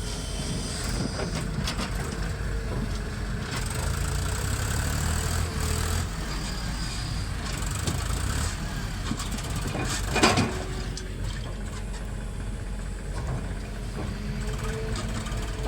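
Heavy machine's diesel engine running steadily, with a loud sharp knock about two-thirds of the way through.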